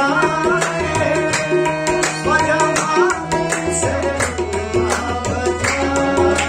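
Live harmonium and tabla: the harmonium holds sustained reed chords while the tabla plays a steady rhythm of strokes, with a man singing over them, mostly in the first half.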